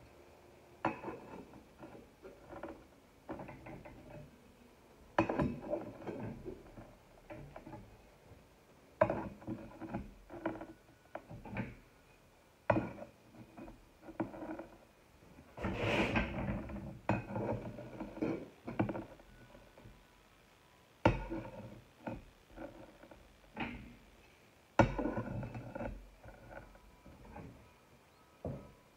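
Ceramic subway tiles being handled and pressed onto trowelled tile adhesive: irregular clicks, taps and knocks of tile against tile and benchtop, some with a short ring, and a denser cluster of knocks about halfway through.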